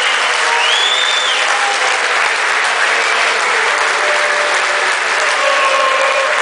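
Large audience applauding steadily at the end of a talk.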